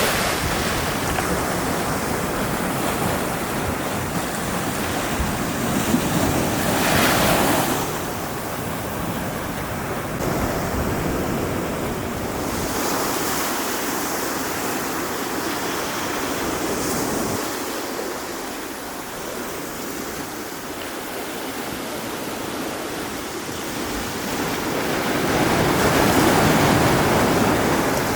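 Sea waves washing onto the shore in a steady hiss, swelling louder about seven seconds in and again near the end, with wind buffeting the microphone.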